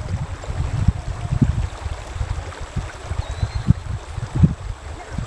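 Wind buffeting the camera microphone in uneven low thumps, over the steady sound of shallow river water running over a gravel riffle.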